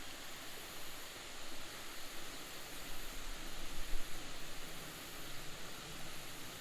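Steady rushing hiss of water flowing over a small creek waterfall, with a brief low rumble about four seconds in.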